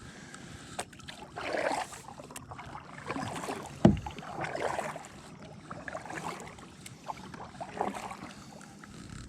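Kayak paddle strokes swishing through the water, about one every second and a half, with a single hollow knock on the hull near the middle.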